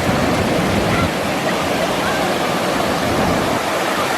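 Ocean surf making a steady, unbroken rush of waves washing on the shore.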